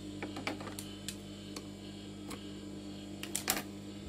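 Steady electric hum from the sewing machine's motor running idle, with scattered light clicks and taps as the seamed fabric and thread are pulled free from under the raised presser foot; the loudest few clicks come about three and a half seconds in.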